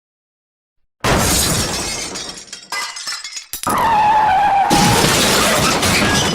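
Dubbed car-crash sound effects. After a second of silence comes a sudden crash with shattering glass, and a second hit follows about a second and a half later. A third crash carries a slightly falling whine for about a second, then trails off near the end.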